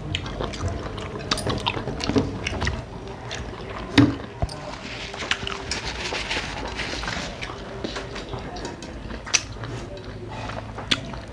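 Close-up eating sounds of rice and curry eaten by hand: wet chewing and lip smacks, with scattered sharp clicks, the loudest about four seconds in.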